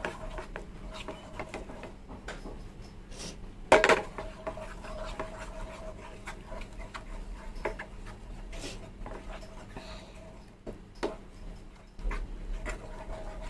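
Spatula stirring a thickening flour-and-milk sauce in a pan, with scattered scrapes and taps against the pan and one loud knock about four seconds in, over a faint steady hum.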